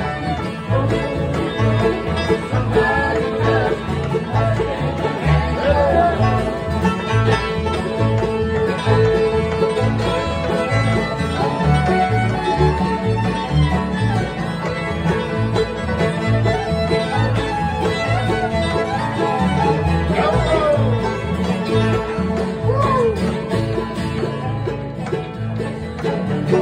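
Acoustic bluegrass jam playing, with picked strings over a steady bass beat that alternates between two notes.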